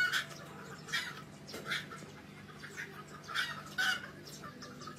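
A chicken clucking, a series of short clucks spread over a few seconds.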